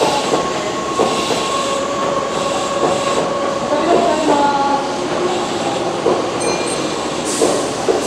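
Keihan 6000 series electric train standing at a station platform, its onboard equipment giving a steady hum with several held tones, over the noise of the busy platform.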